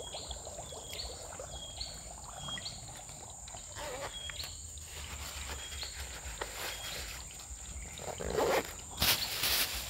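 Insects droning steadily, with a short rising chirp repeating about once a second. Near the end a few louder squelching steps in wet mud.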